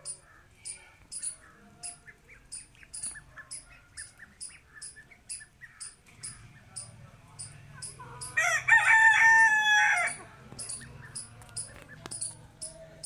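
A rooster crows once, loudly, for about two seconds a little past halfway through. Under it a short high chirp repeats about twice a second throughout.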